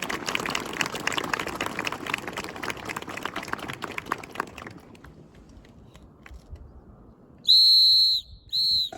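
A whistle blown twice near the end, one long blast and then a short one, each a steady high tone. Before it, a dense patter of sharp clicks fades out over the first few seconds.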